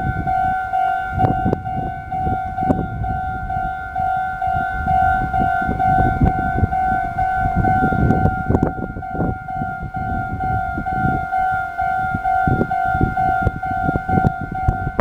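Japanese railway level-crossing warning bell ringing, one electronic tone repeated in rapid, even pulses. Underneath runs a loud low rumble with uneven clattering, as a train passes over the crossing.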